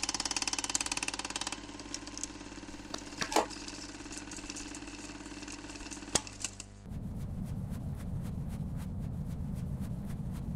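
Logo sound effects of a machine-like kind: a fast, even mechanical clatter over a steady hum, loudest for the first second and a half and then softer, with a sharp hit about three seconds in. From about seven seconds in, a low rumble with rapid ticking replaces it.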